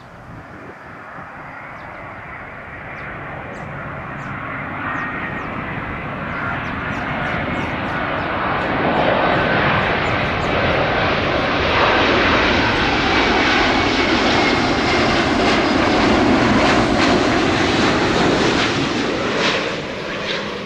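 Jet engines of a heavy airliner passing close: the noise builds over about ten seconds, stays loud with a faint high whine, then eases near the end.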